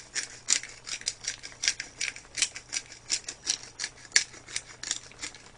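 Handheld bottle-top pepper grinder being twisted over a pot, a steady run of short dry grinding strokes, about four a second.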